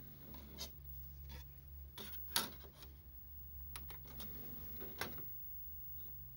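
Disc tray of a Sony SLV-D980P DVD/VCR combo: a DVD is set down in the open plastic tray with a series of light clicks and one louder clack. About five seconds in there is a sharp click as the close button is pressed and the tray begins to draw in. A low steady hum runs underneath.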